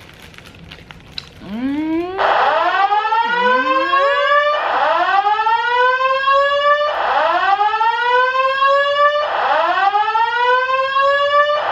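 Building fire alarm's voice-evacuation system sounding its whoop tone between spoken messages: a loud rising sweep repeated about every two and a half seconds, starting about two seconds in.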